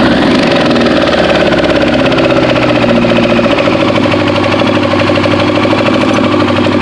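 2001 Yamaha R1's inline-four engine running steadily with a rapid, even knocking tick. The owner places the noise up at the valve cover and says it sounds almost like a valve knock or a missing plug.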